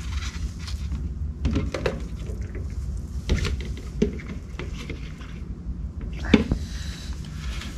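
Plastic mixing cups being handled while the two parts of flotation foam are poured from one cup into another: a few light plastic knocks and clicks over a steady low hum.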